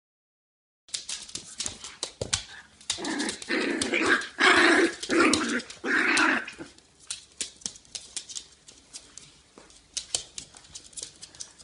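Two small dogs play-fighting on a wooden floor, with a run of loud growls and barks in the middle. Sharp clicks of claws and paws on the floorboards come before and after.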